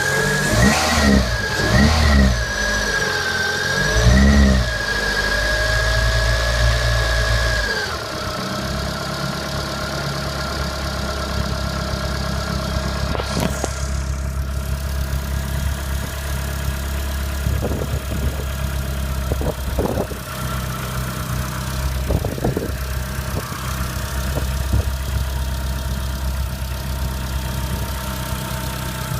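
Renault Clio 197's 2.0-litre four-cylinder engine, cold, blipped a few times and held above idle with a steady high whine, then dropping about eight seconds in to a steady idle with faint ticks. This is the strange cold-engine noise the owner is trying to show.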